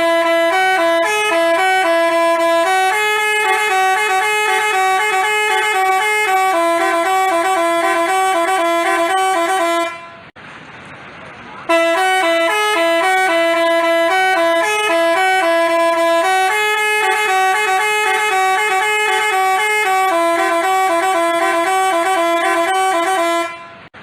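Basuri telolet bus horn, a multi-trumpet musical horn, playing a quick stepping melody for about ten seconds. It stops briefly, then plays the same tune again.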